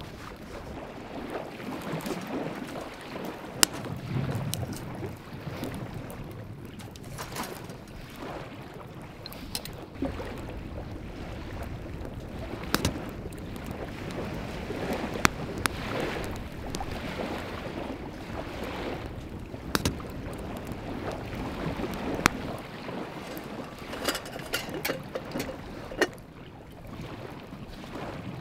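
Wood fire crackling in a small camp fire stove, with irregular sharp pops over a steady rush of wind on the microphone.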